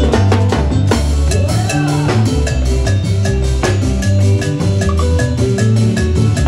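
Salsa dance band playing live: congas, timbales and a metal güira over electric bass and keyboard, at a steady, even dance rhythm.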